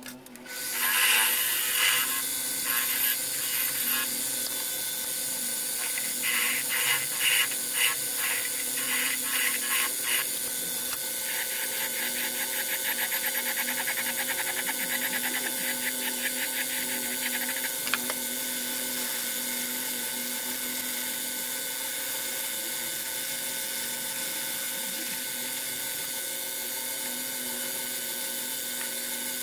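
A small bench metal lathe starts about half a second in and runs steadily. A hand file held to the spinning workpiece scrapes in irregular bursts, then rasps quickly and evenly for several seconds. After that the lathe runs on evenly.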